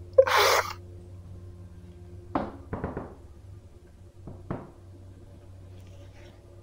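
A short breathy rush of noise near the start, then four sharp knocks spread over about two seconds.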